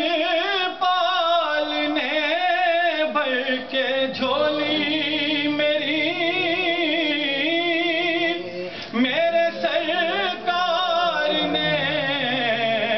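A man singing an Urdu naat solo and unaccompanied, in long wavering, ornamented phrases with short breaths between them.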